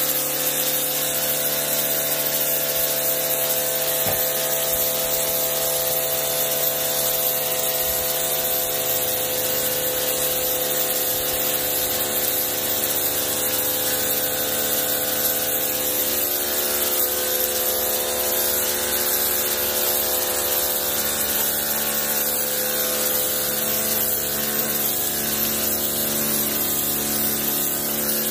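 Ryobi electric pressure washer running steadily: the pump motor hums under the hiss of the high-pressure water jet blasting grime off a concrete floor.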